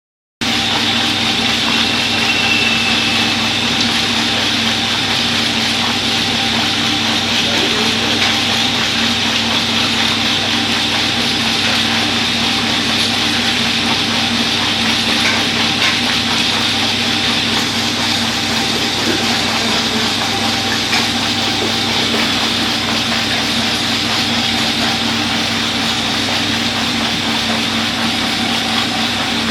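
A petha washing machine running steadily: a continuous machine hum with a few constant tones over an even wash of noise.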